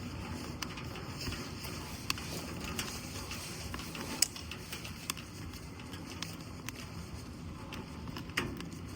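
Steady background hiss with scattered sharp clicks and ticks at irregular intervals, the loudest about four seconds in.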